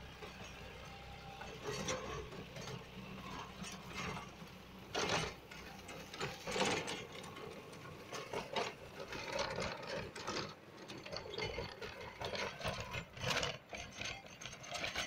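Swan Agro rotavator tilling behind a John Deere 5050D tractor: an irregular clatter of cracks and knocks as its rotating blades chop through dry crop stalks and soil. The tractor's diesel engine runs steadily underneath, plainer in the first few seconds.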